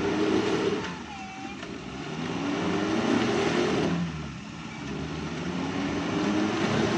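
Suzuki Jimny engine revving hard under load in repeated surges, its pitch climbing and dropping back about three times as the 4x4 crawls up a rocky incline.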